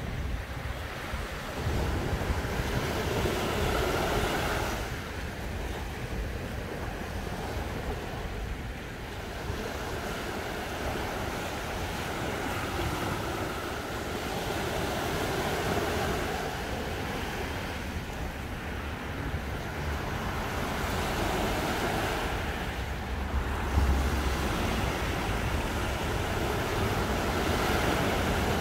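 Small surf lapping on a sandy beach, the wash swelling and easing every few seconds, over a steady low rumble of wind on the microphone.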